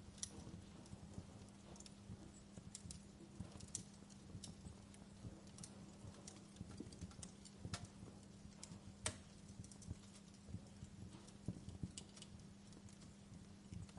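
Wood fire crackling in a fireplace: irregular small snaps and pops, with two louder pops about eight and nine seconds in, over a faint steady hum.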